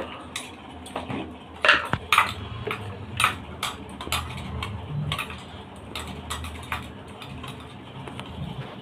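Metal spoons clinking and scraping against steel plates during a meal, a scatter of short, irregular clicks.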